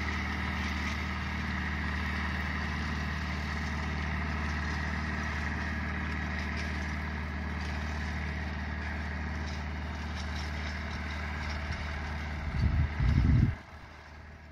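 An engine running steadily at an unchanging pitch, with a loud low rumble lasting about a second near the end.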